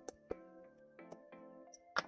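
Quiet background music with long held notes, crossed by a few light clicks and taps from packaging being handled and cut with a hobby knife, the sharpest at the very end.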